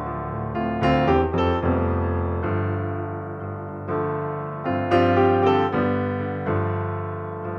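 Background piano music: chords and melody notes struck and left to fade, with quick runs of notes about a second in and again around five seconds in.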